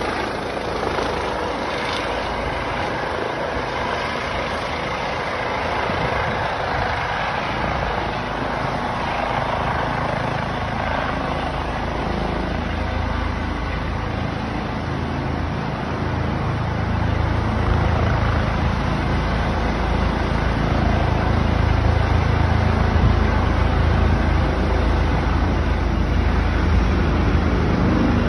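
Rescue helicopter descending and landing, its rotor and turbine noise steady, with a low rumble growing louder from about halfway through.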